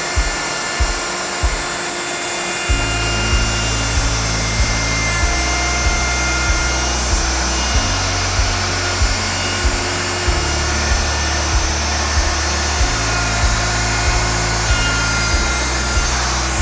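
Background music with a steady beat and changing bass notes over the continuous steady running of a power woodworking tool.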